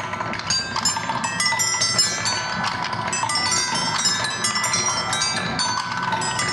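Glass marbles rolling down the bars of a marble-run xylophone element, striking a quick, overlapping run of ringing chime-like notes. Under the notes, marbles rumble along the track.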